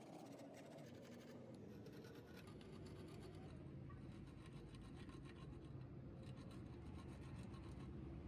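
Faint rapid scratching over a low steady hum, which gets a little louder about three seconds in.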